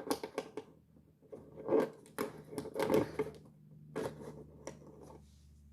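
Small 3D-printed plastic scale-mail pieces being handled and pinned onto a cardboard box: irregular light clicks and scratchy rustles, busiest between about one and a half and three and a half seconds in.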